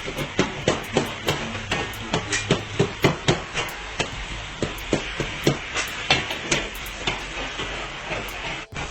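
Cooking sounds from a karahi dish being made: a steady sizzling hiss with an uneven run of sharp knocks, about three a second.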